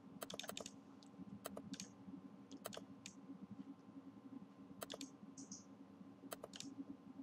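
Faint clicks of a computer mouse and keyboard, mostly in quick pairs about every second, over a low steady hum.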